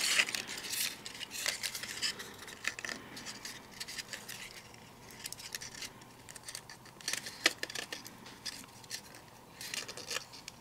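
Die-cut cardstock being handled and folded, its tabs pushed into slots: irregular light rustling, scraping and small clicks of paper.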